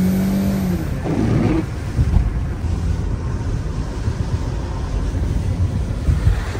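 Car engine revving with its pitch rising for the first second, then giving way to an uneven low rumble of tyres on wet pavement and wind, heard from inside the cabin as the car drives on.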